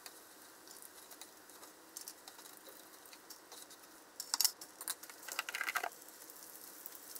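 Faint crackle of hot oil shallow-frying battered chikuwa rings in a pan. About four to six seconds in comes a run of small clicks and taps as the fried rings are lifted out with chopsticks onto a metal draining tray.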